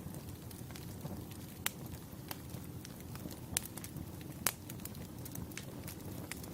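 Wood fire crackling: a steady low rush of burning logs with sharp pops at irregular intervals, the loudest about four and a half seconds in.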